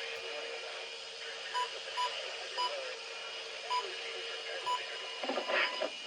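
Weather radio receiver hissing with static, with a faint steady tone underneath. Five short electronic beeps sound at uneven intervals through the middle, and a brief burst of sound comes near the end.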